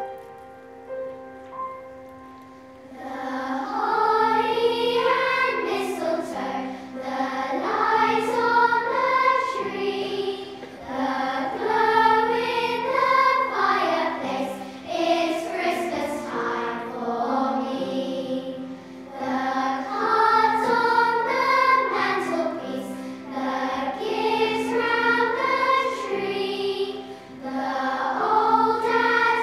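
Large children's choir singing a Christmas song in phrases of a few seconds, with piano accompaniment. The voices come in about three seconds in, after a few sustained piano notes.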